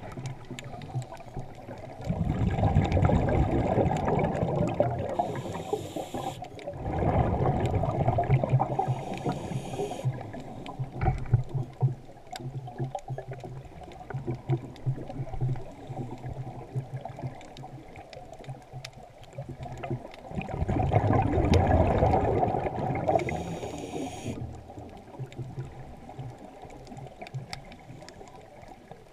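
Underwater sound picked up by a submerged camera: three swells of bubbling, rushing water a few seconds long, each ending in a short hiss, with a low pulsing hum in the quieter stretches between them.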